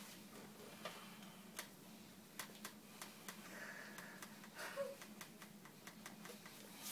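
Very quiet room tone with a faint steady low hum and scattered small clicks and taps at irregular moments.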